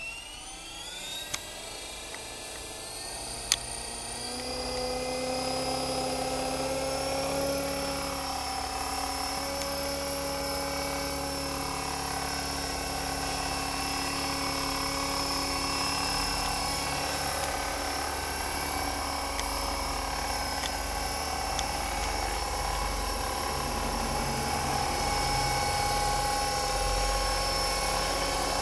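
Electric Align T-REX 450 RC helicopter spooling up, its motor and rotor whine rising in pitch over the first few seconds. It then runs steadily as the helicopter lifts off and hovers. Two sharp clicks come during the spool-up, the louder one about three and a half seconds in.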